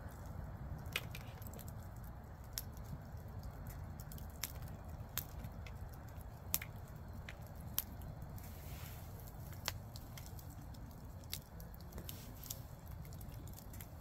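Bonfire of dry firewood crackling: scattered, irregular sharp pops and snaps over a low steady rush of flame.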